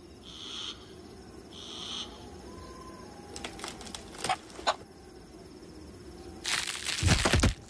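Cartoon night ambience: crickets chirping steadily, with a few short sound effects in the first half and a loud rushing burst about a second before the end.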